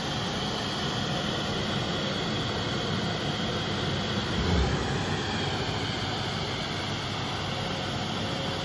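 CNC router cutting sheet stock: the 12 hp HSK spindle running under load with dust extraction drawing air, a steady mechanical noise with a faint high whine. A brief low thump comes about four and a half seconds in.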